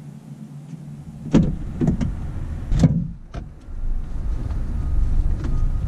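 Ford F-150 pickup's driver door unlatched and swung open, with three loud knocks and clunks a second or so apart as a person climbs into the cab. From about halfway in, a steady outside rumble comes in through the open door.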